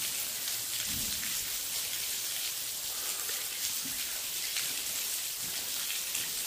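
Water raining down a brick tunnel ventilation shaft and splashing below: a steady hiss of falling drops.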